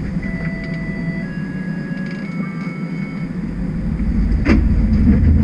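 Inside a TTC streetcar standing at a stop: a steady low rumble from the car's equipment with faint, thin electrical whines at shifting pitches. About four and a half seconds in there is a sharp knock, and the low rumble then grows louder.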